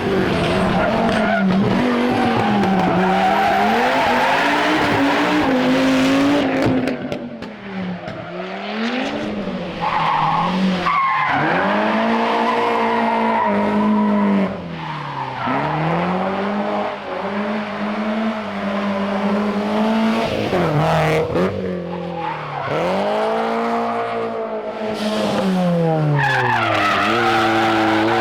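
Historic rally car engine pulled hard through the gears, its revs climbing and dropping back over and over, with tyre squeal. The engine eases off twice, about a quarter of the way in and again past the middle, before revving hard again.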